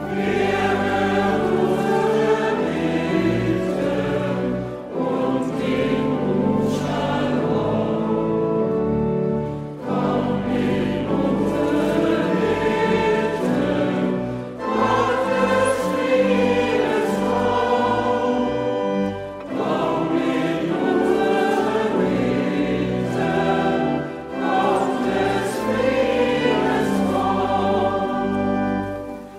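A choir singing closing music after the Mass, in held phrases about five seconds long with short breaks between them.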